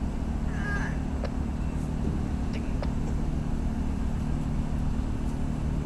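Tug's diesel engines running steadily, a low even drone, while the tug pushes ahead slowly to couple with the unpowered barge.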